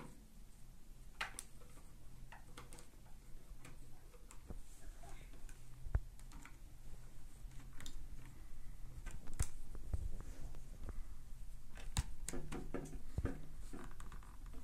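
Plastic propellers being fitted by hand onto a Xiaomi FIMI A3 drone's motors: irregular small clicks and knocks of plastic on plastic and on the tabletop.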